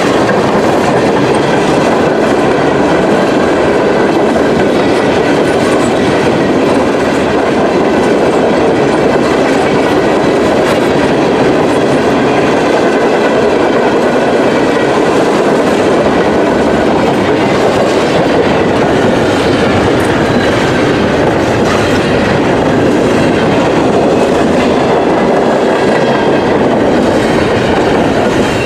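Cars of a Norfolk Southern manifest freight train rolling past, a loud steady rumble and clatter of steel wheels on the rails.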